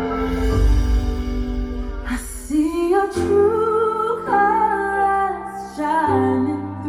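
Background pop song: a voice sings long held notes that slide from one pitch to the next over a steady backing.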